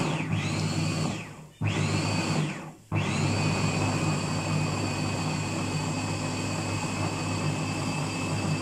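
Moulinex electric mini chopper grinding green chili peppers. The motor is pulsed: it stops and restarts twice in the first three seconds, its whine rising each time it spins back up, then runs steadily.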